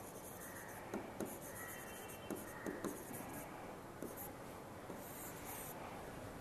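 Faint writing strokes on the glass of an interactive whiteboard: small taps and light scratches as a word and a brace are written.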